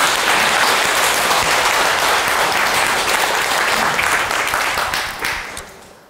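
Audience applauding, fading out near the end.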